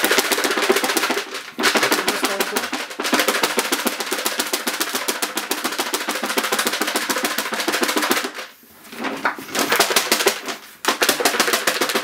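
Popcorn rattling inside a lidded plastic bowl that is being shaken hard: a dense, rapid rattle in several bouts, broken by brief pauses, the longest about eight and a half seconds in.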